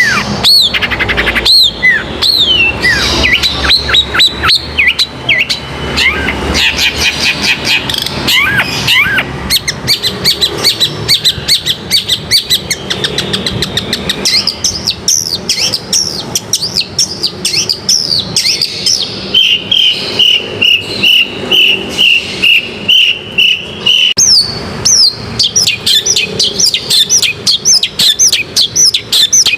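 Long-tailed shrike (cendet) singing a fast, varied chattering song of rapid down-slurred notes, with a steady high trill held for about five seconds just past the middle.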